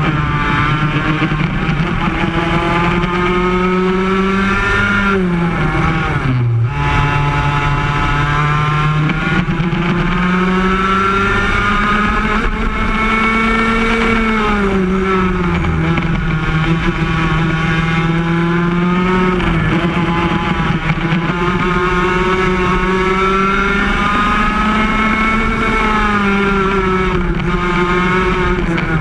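Yamaha KT100 two-stroke single-cylinder kart engine at high revs, heard from on board the kart. Its pitch drops sharply about six seconds in as the driver lifts for a turn, then climbs back, with several smaller dips and rises through the following turns.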